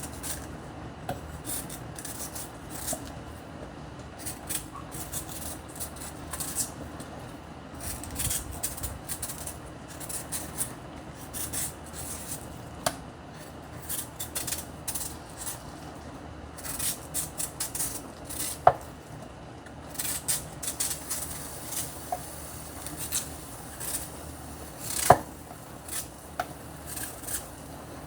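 Kitchen knife scraping and peeling a coco root, with many small scrapes and light clicks of the blade, and two sharper knocks of the knife against a bowl or board, about two-thirds of the way in and near the end.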